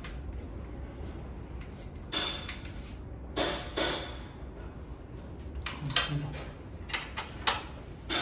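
Scattered knocks and clinks from hand-assembling an Adirondack chair: parts, screws and tools being handled and set down, about eight irregular strikes over a low steady hum.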